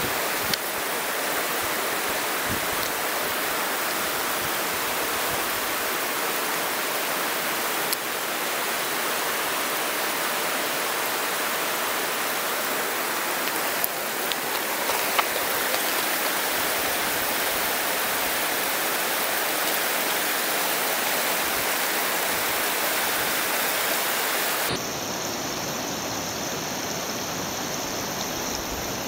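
Rushing water of a rocky river's rapids, a steady hiss, dropping slightly in level near the end.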